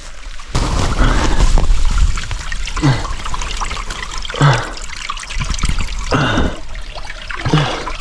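Water trickling and gurgling in irregular surges, over a steady low rumble of wind on the microphone.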